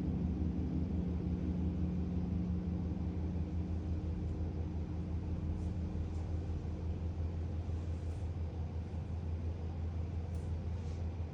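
Gong ringing out after a strike. Its higher tones fade over the first six seconds or so, while a deep low hum holds steady.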